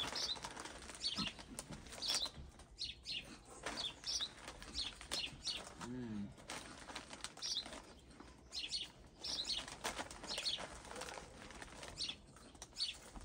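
Small birds chirping repeatedly in short high notes, with a brief low hum from a person about six seconds in.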